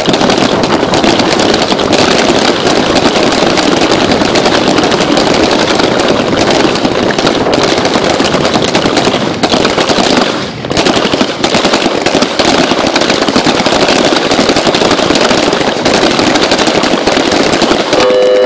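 Many pistols firing at once along a firing line, the shots overlapping into a dense, continuous crackle of sharp cracks, with a brief lull about ten and a half seconds in. This is a timed standing rapid-fire string: five rounds at one target, a reload, then five at the next.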